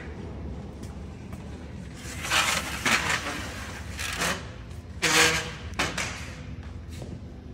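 Handling noise from assembling an aluminium display frame: a few short scraping and rustling sounds between about two and six seconds in, over a steady low hum.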